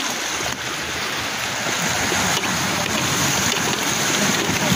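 Sea surf washing over shoreline rocks: a steady rushing noise.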